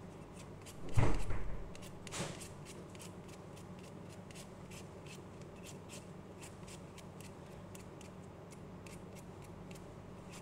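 Hand peeler scraping the skin off a raw potato in quick, repeated short strokes. A louder knock comes about a second in.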